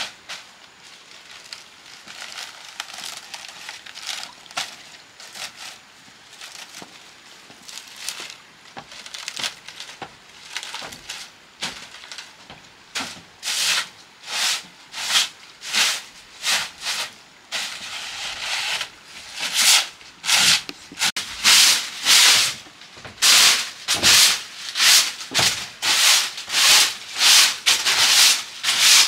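Rhythmic rubbing strokes, as of something scrubbed or sanded by hand, about two a second, becoming much louder and more distinct about halfway through.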